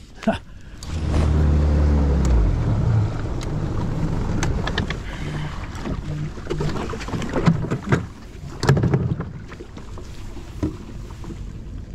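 Small boat's motor running as the boat moves over the water, a steady low hum over wind and water noise that is strongest in the first couple of seconds and then eases. A few sharp knocks come in the second half.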